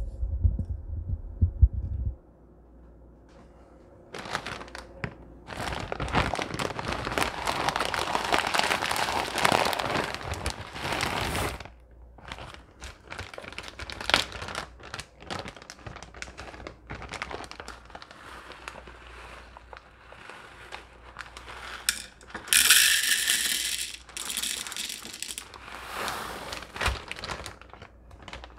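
Low thumps of hands bumping the microphone at the start, then a plastic bag of popcorn kernels rustling and dry kernels rattling and clicking into a plastic measuring cup. The rustling and rattling come in bursts, with one long stretch of several seconds and a short bright crinkle near the end.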